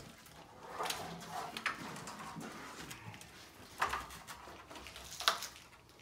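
Aluminum rack parts being handled and fitted: a few sharp metallic knocks and clicks with some rattling, the loudest two about four and five seconds in.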